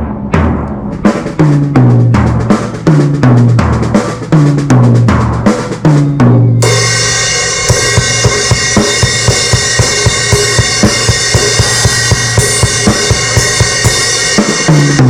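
Drum kit played loud through the PA during a band's sound check: separate kick and tom hits with low ringing tones, then, about six and a half seconds in, cymbals wash in over a steady beat.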